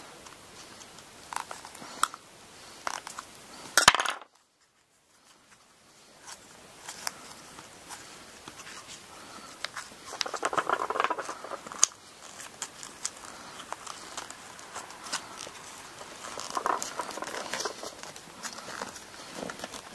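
Small handling sounds of a zori sole being worked by hand: light clicks and ticks as a metal awl pokes cotton cord into the groove of the sole. About four seconds in there is a sharp knock, after which the sound drops out completely for about a second. Later come scratchy rubbing stretches, twice, as fingers press a small piece into the sole.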